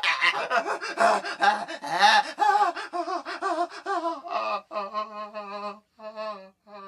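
A man's yells and cries from a sound-effects library, a run of short vocal bursts. The first are harsh and breathy; later ones are pitched and wavering, breaking off in several separate bursts near the end.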